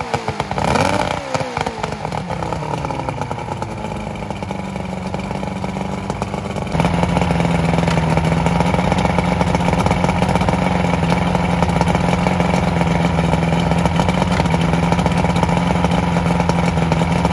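Evinrude SPL 88 V4 two-stroke outboard running just after its first cold start following winter storage: revs rise and fall briefly, then it settles into a steady idle. About seven seconds in it turns abruptly louder.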